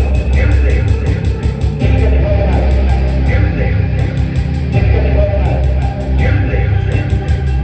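Rock band playing, guitar-led, over a heavy low end, with a quick, even run of high ticks that comes and goes in groups about every two seconds.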